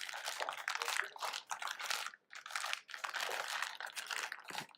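Crinkling and rustling in irregular bursts with brief pauses, as tourniquets are handled and picked up.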